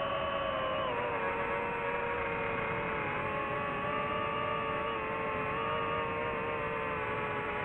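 DJI FPV drone's motors and propellers whining steadily in flight. The pitch drops a little about a second in and then holds level.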